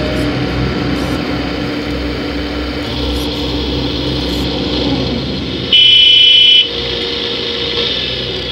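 Scale RC hydraulic construction models running: a steady electric motor and hydraulic pump whine over a low pulsing engine hum, the whine dropping in pitch about five seconds in. A little past halfway a loud electronic beep sounds for about a second.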